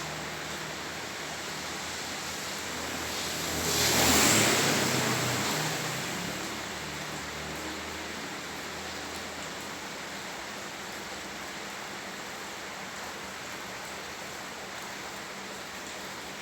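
Steady hiss of heavy rain on a flooded street. About four seconds in, a vehicle passes through the water with a whoosh that swells and fades over a couple of seconds, and a low engine hum dies away soon after.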